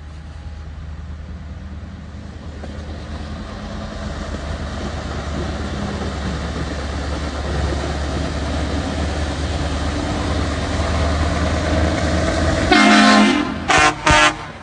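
Scania V8 truck's engine running low and steady, getting louder as the truck approaches. Near the end its air horn sounds one long blast, followed by two short toots.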